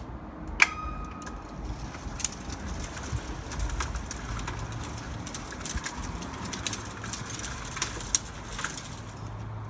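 Small walking-machine prototype with Theo Jansen leg linkages stepping across concrete under motor power: a low motor hum with irregular metallic clicks and clanks from the legs. One sharp metal clink rings briefly about half a second in.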